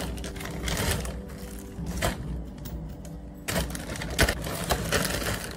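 A sponge rubbing over a robot vacuum cleaner's plastic body as it is handled for cleaning: scrubbing noise broken by a few sharp plastic knocks and clicks, the loudest about four seconds in.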